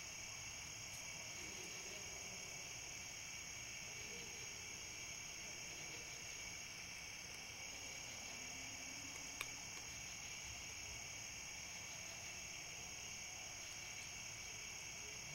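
Steady chorus of night insects, a continuous high trill at two pitches, with one click about nine seconds in.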